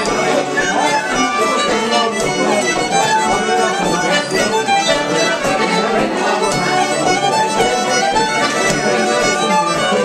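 Irish traditional dance tune played in unison on fiddle and button accordion, the melody lively and ornamented. A steady low thump keeps the beat underneath.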